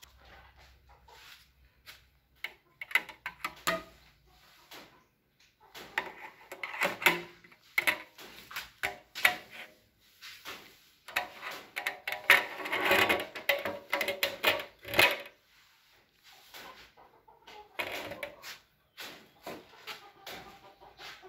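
Chickens clucking on and off, in several irregular bouts, the loudest a few seconds before and after the middle.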